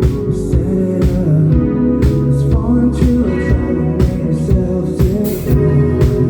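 Live band music, loud and steady: drums keeping a steady beat of about two hits a second under bass and guitar.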